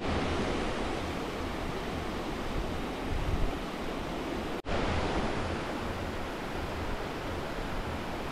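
A steady rushing noise that cuts out for a split second about four and a half seconds in, then carries on.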